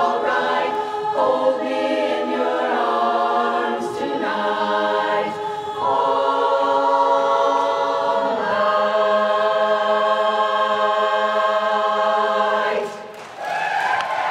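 Women's barbershop chorus singing a cappella, sustaining the closing chords of the song and ending on one long held chord that cuts off about four seconds before the end. Audience cheering and applause rise just after the cutoff.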